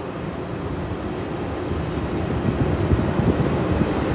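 Pair of class 90 electric locomotives hauling a freight train up to and past the platform: a steady rumble of wheels and motors that grows louder as they draw near.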